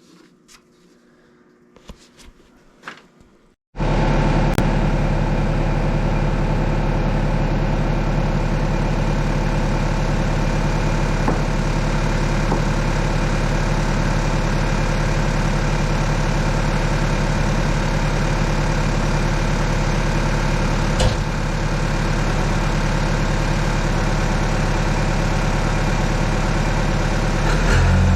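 Yanmar ViO80 excavator's diesel engine running at a steady idle, coming in suddenly about four seconds in after a few faint clicks.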